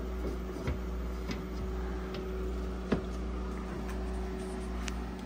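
Artillery M1 Pro 3D printer running through its startup routine: a steady fan and motor hum holding two even tones, with a few light clicks, the sharpest about three seconds in.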